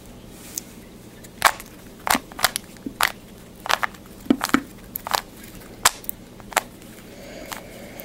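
Plastic Rubik's Cube being turned by hand: about fifteen sharp clicks and clacks at irregular spacing as its layers are twisted and snap into line.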